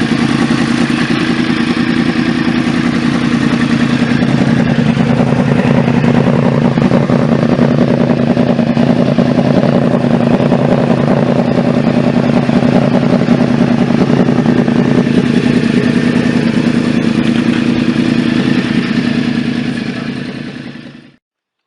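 2015 Yamaha R1 crossplane inline-four engine running steadily at a constant speed, with no revving. It fades out and stops shortly before the end.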